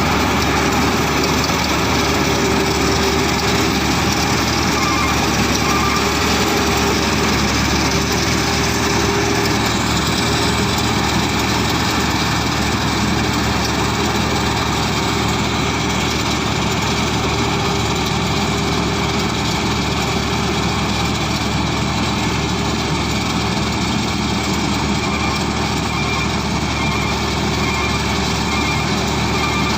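Rice combine harvester running steadily, a continuous engine-driven mechanical drone with no change in level.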